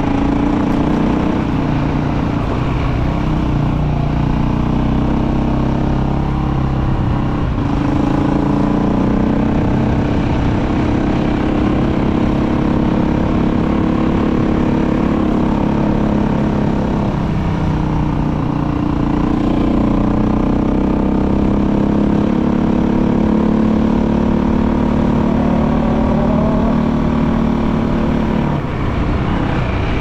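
KTM motorcycle engine running while riding, its pitch rising and falling with the throttle, with brief drops in pitch a few times.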